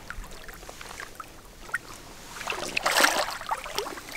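Water splashing and sloshing in the shallows, starting a little over two seconds in and louder near the end, after a quiet stretch with a few faint ticks.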